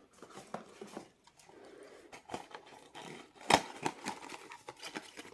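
Cardboard gift box of an advent calendar being opened and its packing handled: scattered clicks, taps and rustles, with one sharper tap about three and a half seconds in.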